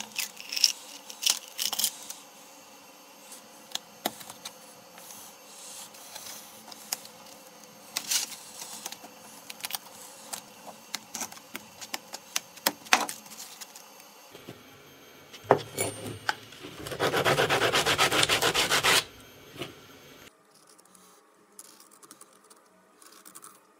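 Hands handling sandpaper and a cork block on a wooden bench: scattered taps, clicks and paper rustles. About two-thirds of the way through comes a loud stretch of about two seconds of fast rubbing strokes.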